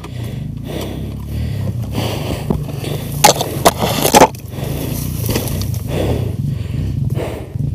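Dirt bike engine running steadily at low revs. About three seconds in, leafy branches crackle and scrape against the bike and camera for about a second; these are the loudest sounds.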